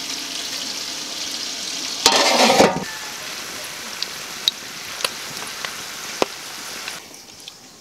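Pork ribs frying in hot oil: a steady sizzle with sharp pops and crackles of spitting oil, and a louder surge of sound about two seconds in. The sizzle falls away near the end.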